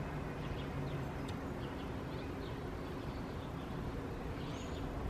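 Outdoor ambience: a steady low background rumble with faint, scattered bird chirps and a brief high whistle near the end.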